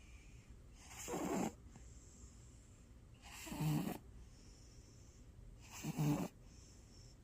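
A domestic cat snoring in its sleep: three snores about two and a half seconds apart, each about half a second long, the second and third with a low buzz.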